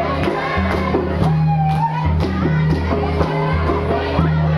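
Lively music with a held bass line, a steady beat about twice a second and a singing voice, over the noise of a large crowd.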